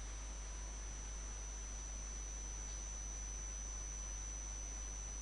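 Steady low electrical hum and a constant high-pitched whine over faint hiss, unchanging throughout.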